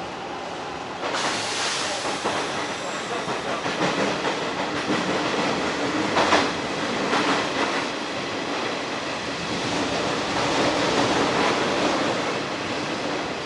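Hanshin 1000 series electric train running on the rails, heard from inside the car: a steady rumble of wheels and motors that grows louder about a second in, with a few sharp clacks of wheels over rail joints.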